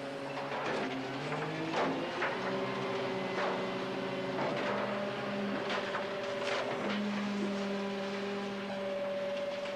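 Film score music: held string notes that move in steps between pitches, with sharp plucked notes over them.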